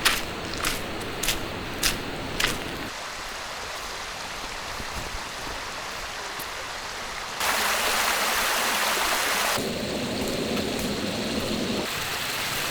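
Small river flowing and splashing over rocks, a steady rush of water with a few sharp ticks in the first two or three seconds. The water grows louder about seven seconds in and eases again near ten seconds.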